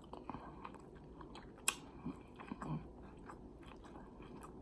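A person chewing a mouthful of smoked beef short rib: soft, wet mouth clicks, with one sharper click a little before the middle.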